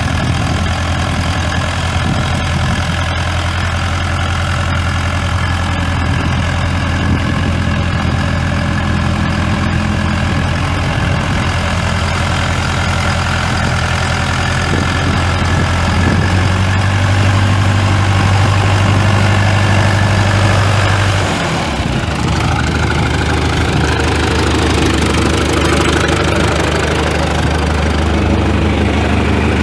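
1990 John Deere 2355's 3.9 L four-cylinder diesel engine running steadily at idle, its note changing abruptly about two-thirds of the way through.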